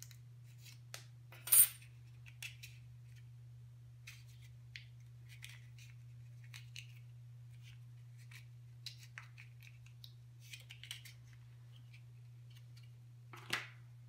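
Small utility-knife parts being handled and fitted together: scattered light clicks and taps of metal and plastic, with a sharp ringing metallic click about a second and a half in and another loud click near the end, over a steady low hum.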